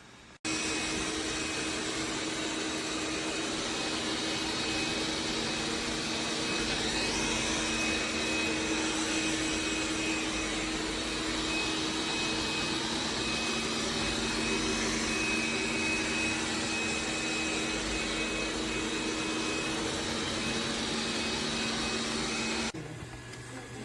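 Dreame L10s Ultra robot vacuum's suction running steadily with a few steady hums in it. It switches on abruptly about half a second in and cuts off suddenly near the end.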